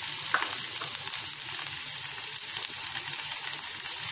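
Chopped shallots, curry leaves and tomato sizzling steadily in hot oil in a stainless steel kadai, with one brief click about a third of a second in.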